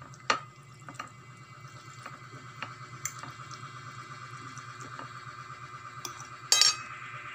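Metal fork clinking and scraping against a ceramic plate as it twirls spaghetti: scattered light clicks, with a louder, longer scrape near the end, over a steady hum.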